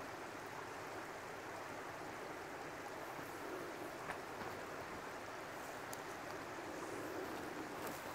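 Steady rush of flowing water, with a few faint clicks.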